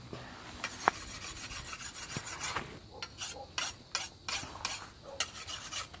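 Corn leaves rustling and scraping as someone pushes through a stand of tall corn, with a run of short, sharp swishes over the second half.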